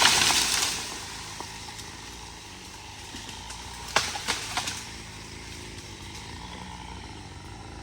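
A felled tree crashing down through branches: a loud rushing crash in the first second that dies away. An engine then idles steadily, with a few sharp snaps about four seconds in.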